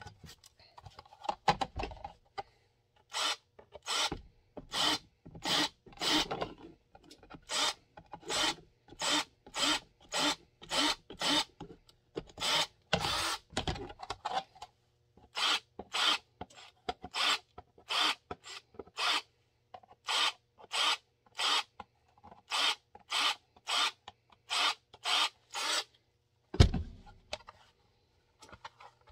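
Rasping strokes of a hand tool cleaning up drilled holes in Kydex sheet before riveting, about one and a half strokes a second, with a short pause midway. A single knock near the end is louder than the strokes.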